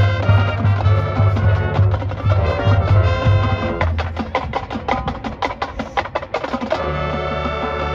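Marching band playing: a rhythmic low bass line for the first few seconds, then a stretch of rapid, sharp percussion hits about four seconds in, and the full band holding a sustained chord near the end.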